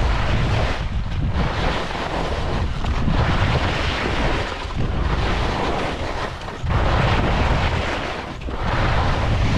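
Wind rushing over the microphone of a skier's action camera, with the hiss of skis sliding through snow, a steady rushing noise that swells and eases every couple of seconds with the turns.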